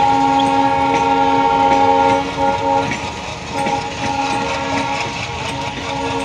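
ALCO diesel locomotive's multi-tone air horn sounding, loudest for the first two seconds and then softer, over the rumble of the moving train with wheels clacking over rail joints.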